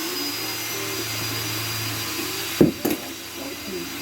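Steady whirr of a shop power tool running, with a thin high whine over it. Two sharp knocks come close together about two and a half seconds in.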